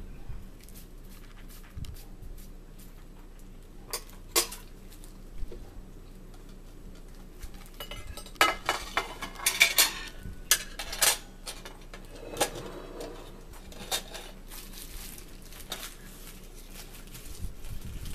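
Knife and fork clinking and scraping on a plate while food is cut, in scattered strokes with a run of louder scrapes about halfway through.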